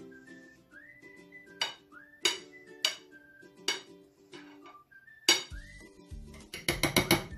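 Metal spoon clinking against a glass baking dish as whipped cream is spread: single sharp clinks about a second apart, then a quick run of about six taps near the end. Underneath is background music with a whistled melody.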